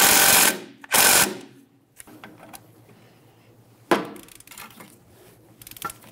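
A power ratchet runs in two short bursts, snugging a strut mounting bolt. A single sharp click follows just before four seconds in, as the bolt is brought to its 35 ft-lb torque with a torque wrench.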